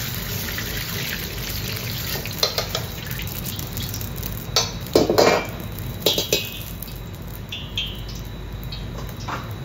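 Metal ladle clanking and scraping in a carbon-steel wok as hot oil is swirled around it and poured off, with the loudest clatter about halfway through, over the steady low rush of a restaurant gas wok burner.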